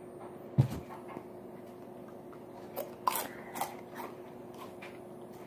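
A sharp knock about half a second in, then a few light clicks and taps over a faint steady hum: small handling noises.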